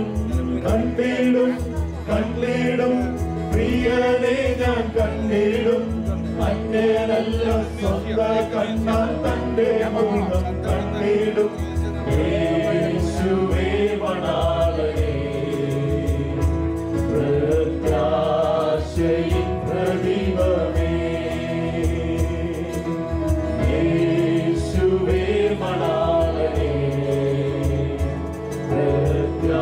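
A choir singing a slow Christian hymn, without a break.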